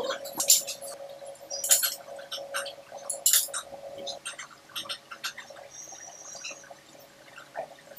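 Sharp metallic clinks and knocks from a steel workpiece being set and clamped in a lathe's four-jaw chuck with a chuck key, the loudest in the first few seconds and sparser later, over a steady hum.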